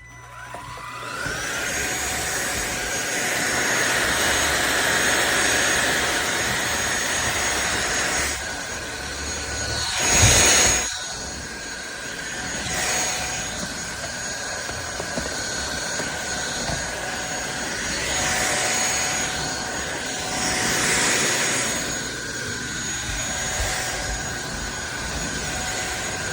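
SunSare X7A cordless stick vacuum cleaner switched on, its motor whining up to speed in the first second or two, then running steadily with a high whine and a rush of air. The sound swells and dips, with a brief louder rush about ten seconds in.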